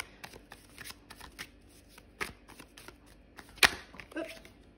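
Tarot cards being shuffled by hand, a run of soft riffling clicks and ticks, with one sharp card snap about three and a half seconds in as a card jumps out of the deck.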